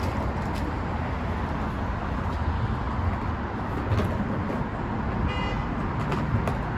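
Steady low outdoor rumble, with a few light knocks and clicks scattered through it and a brief high-pitched toot a little after five seconds in.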